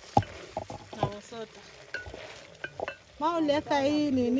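A wooden spoon stirring chicken in a metal cooking pot, with scattered knocks and scrapes against the pot. About three seconds in, a person's voice starts up and is louder than the stirring.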